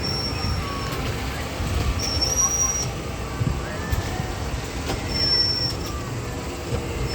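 Off-road rally kiddie ride's car rumbling along its track. A thin, high steady squeal comes and goes three times, each for under a second.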